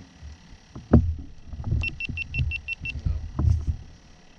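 Dull knocks and thumps from someone moving about on a boat's deck, the loudest about a second in, and partway through a quick run of about eight short, high electronic beeps.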